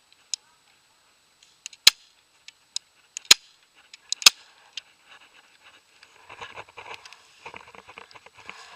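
Airsoft gun firing: four sharp cracks about a second apart, with fainter clicks between them, followed by a few seconds of light rustling and clatter.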